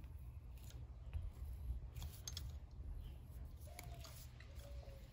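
Hand tap turned in a T-handle tap wrench, cutting threads into a drilled bolt hole in a cast engine case to take a Helicoil insert: faint scattered clicks and scraping with a few short squeaks, over a low steady hum.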